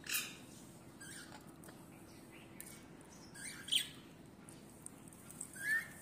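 Green Indian ringneck parakeet giving a few short, high chirps, the loudest about halfway through and the last a quick rising chirp near the end.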